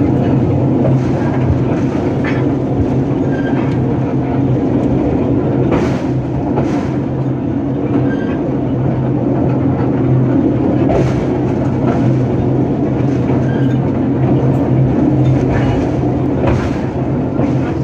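Narrow-gauge train heard from the locomotive cab, running steadily with a constant low drone. A few sharp clicks from the wheels passing over rail joints come at uneven intervals.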